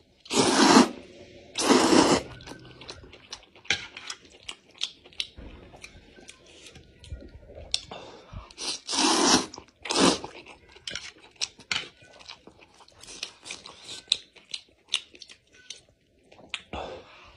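Close-miked eating of spicy fried noodles: a man slurps up strands in four loud pulls, two in the first couple of seconds and two more about nine and ten seconds in, with wet chewing and small mouth clicks between them.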